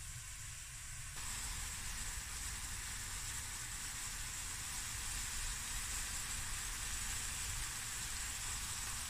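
Onions and mixed peas, carrots and sweetcorn sizzling steadily in butter in a stainless-steel frying pan as the onions sweat down, a little louder from about a second in.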